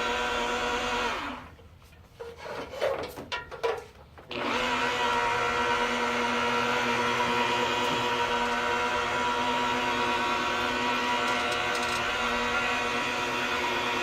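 A small electric power tool motor running with a steady whine. It stops about a second in, a few knocks and clicks follow, and it starts up again at about four seconds and runs steadily.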